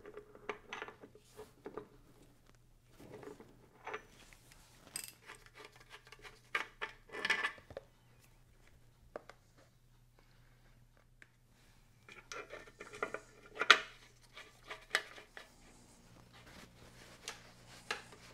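Scattered metal clinks, taps and short scrapes of a spanner working the drain plug out of a motorcycle oil tank, with one sharp knock about three-quarters of the way through.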